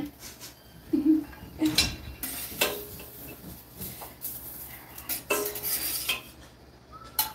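Metal tongs clacking and scraping on a Weber stainless flat-top griddle as hot dogs are picked up and set on a board, in several separate clatters.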